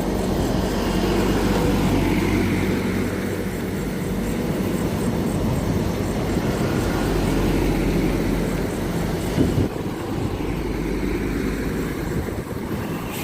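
Road traffic passing close by: engine and tyre noise swelling and fading twice over a steady low engine hum, with a short knock about nine and a half seconds in.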